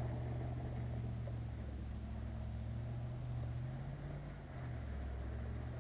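Off-road 4x4 engine running with a steady low drone. Its pitch rises briefly about three and a half seconds in, then settles again.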